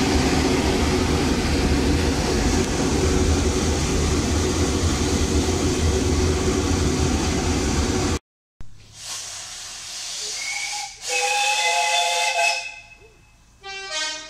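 A loud steady rushing rumble for about the first eight seconds, then a sudden cut. After it come steam hiss and a steam locomotive's whistle: one longer blast, then a short toot near the end.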